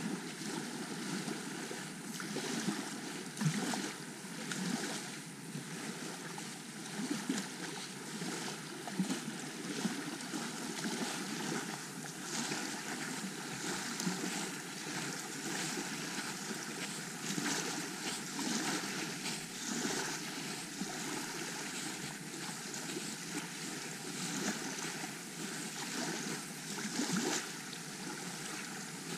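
Small waves washing onto the shore, with wind noise on the microphone.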